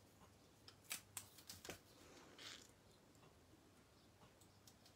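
Near silence with a few faint clicks and taps of paper craft pieces being handled on a work surface, bunched about one to two seconds in, and a soft rustle a little later.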